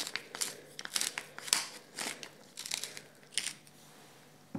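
Wooden pepper mill grinding peppercorns: a run of short crackly grinding strokes as the top is twisted back and forth, stopping about three and a half seconds in.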